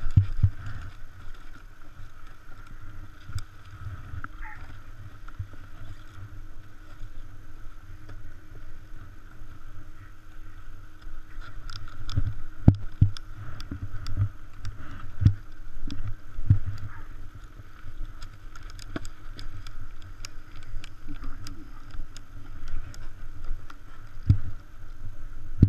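Low rumbling wind and handling noise on an action-camera microphone, with scattered clicks and knocks, most of them about halfway through, as a seated snowboarder works the binding straps.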